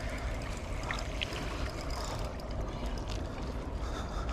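Steady outdoor water and wind noise, heaviest in a low rumble, with a few faint ticks about a second in.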